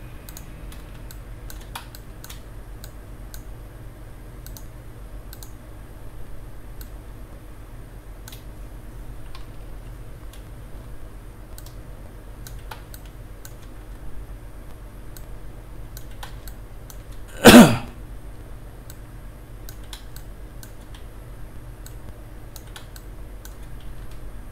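Sparse computer mouse and keyboard clicks over a steady low hum. About two-thirds of the way through there is one short, loud burst, louder than anything else.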